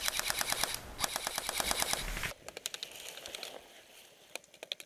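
Airsoft electric gun firing on full auto in two rapid bursts, a rattle of evenly spaced shots broken by a short pause, then fainter scattered clicks.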